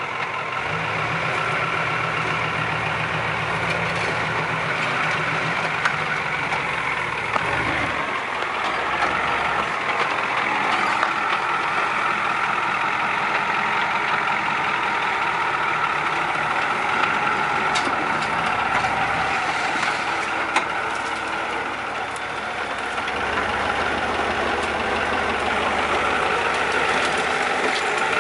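Ford Bronco's turbocharged IDI diesel engine running at low speed under load as the truck crawls up a dirt ledge. Its low note drops away about eight seconds in and comes back about two-thirds of the way through, with a few sharp clicks over it.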